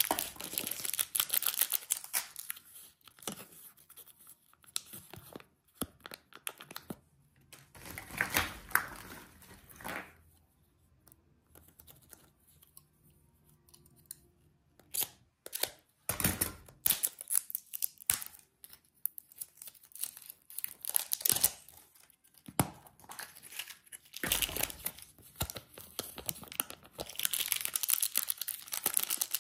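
Thin plastic candy wrappers and packets crinkling and tearing as they are pulled open by hand, in several bursts with short pauses between.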